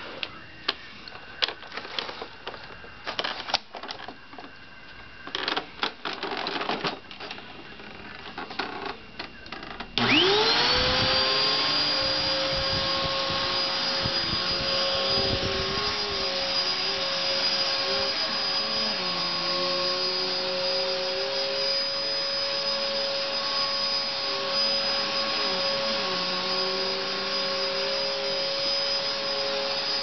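Scattered clicks and knocks, then about ten seconds in a 12-amp Hoover NanoLite upright vacuum cleaner switches on, its motor whine rising quickly to a steady pitch and running on as it is pushed over carpet.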